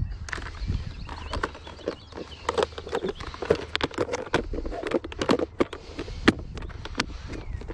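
Irregular sharp clicks and light knocks, several a second, of fishing tackle being handled in a small boat.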